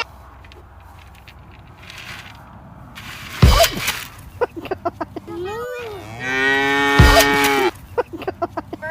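Cattle mooing: a short call that rises and falls about five and a half seconds in, then one long call of about a second and a half near the end. A loud thump about three and a half seconds in, and scattered clicks.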